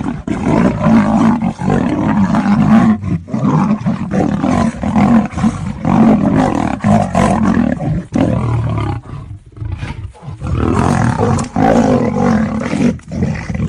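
A lion and a tiger roaring as they fight: near-continuous, overlapping roars with a short lull about nine seconds in.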